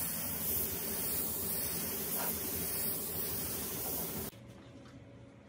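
Gravity-feed air spray gun hissing steadily as it sprays paint onto a wooden speaker cabinet. The hiss cuts off suddenly near the end.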